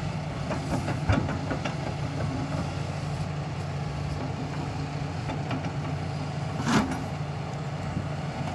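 Hydraulic excavator's diesel engine running steadily, with a few light knocks about a second in and one short, louder burst of sound near the seven-second mark.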